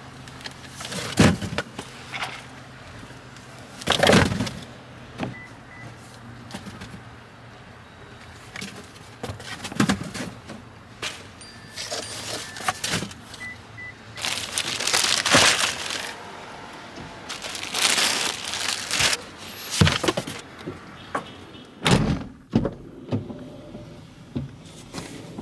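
Rolls of wrapping paper and shopping bags rustling and knocking as they are loaded into the cargo area of a Land Rover Defender, in a series of separate clatters and rustles. Near the end a car door shuts with a heavy thump.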